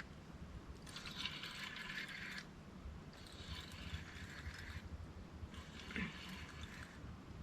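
Soft splashing and sloshing of water in four swells about two seconds apart.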